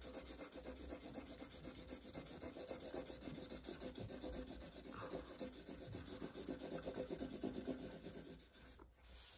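Brown Sharpie permanent marker scribbling fast back and forth across paper as an area is coloured in, a rapid run of rubbing strokes that stops shortly before the end.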